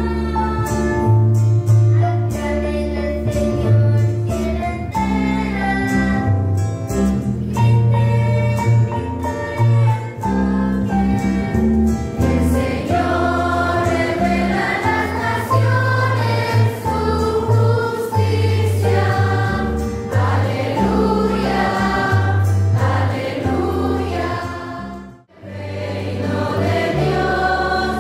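Church choir singing a hymn over sustained low instrumental accompaniment, with a brief break near the end.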